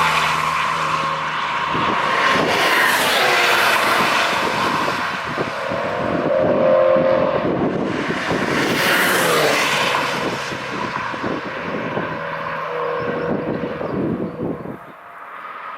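Cars going by at speed one after another, each engine tone falling in pitch as it passes, with tyre and wind noise. The sound fades near the end.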